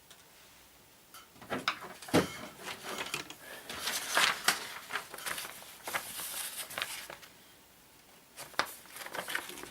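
Irregular clicks, knocks and scraping from tools and parts being handled on a workbench during work on a vintage stereo receiver, bunched in the first two-thirds, with a few more clicks near the end.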